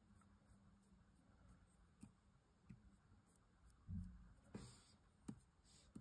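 Near silence with the faint scratch of a fine paintbrush flicking wet shimmer paint across die-cut cardstock, and a few soft ticks and taps scattered through it.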